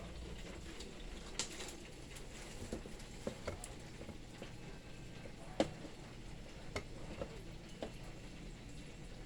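Scattered light clicks and taps at irregular times, the sharpest about five and a half seconds in, over the steady low hum of an electric fan.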